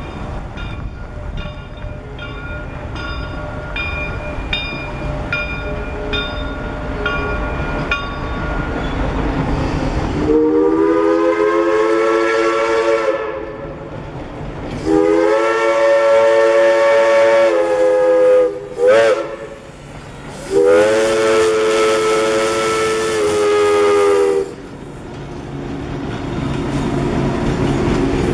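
Reading & Northern 4-6-2 No. 425's steam whistle blowing the grade-crossing signal: two long blasts, one short, then a final long one, each a chord of several notes. Before the whistle a bell rings steadily, and after it the rumble of the passing train grows.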